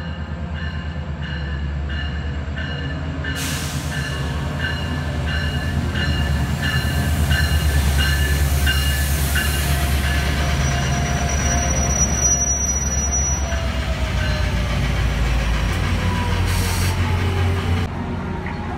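Metrolink commuter train pulling into the station and stopping: the diesel locomotive's low engine rumble swells as it passes close by, while a bell dings steadily about every two-thirds of a second through the first half. As the train slows to a stop, a faint squeal falls gradually in pitch.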